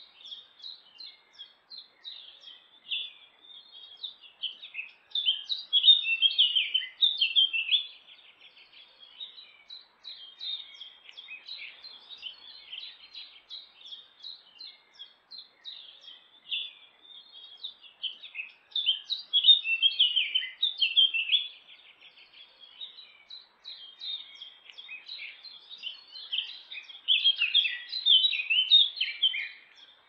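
Songbird singing high, chattering phrases, loudest in three bursts of a couple of seconds each, with quieter chirps in between.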